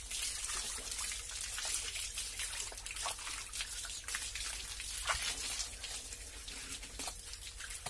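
Water from a running garden hose splashing and trickling onto a wet paved floor, with many small irregular splashes.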